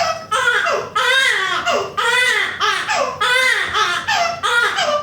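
Infant crying hard, a steady run of short loud wails, about two a second, with quick gasps between them.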